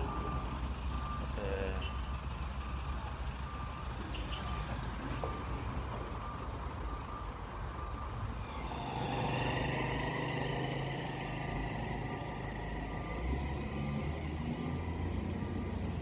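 Reversing alarm on a construction vehicle beeping in one high tone at an even pace, over the steady rumble of heavy truck engines. About halfway through, a louder engine comes in close and keeps running.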